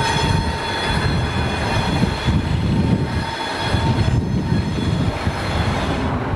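Burlington Northern six-axle diesel locomotive rumbling as it rolls slowly past, with a thin steady squeal from the wheels. Shortly before the end the squeal drops away and only the engine rumble remains.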